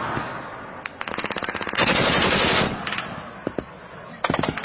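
Automatic weapon firing in rapid bursts: a quick string of shots about a second in, a longer loud burst about two seconds in, and another burst beginning near the end.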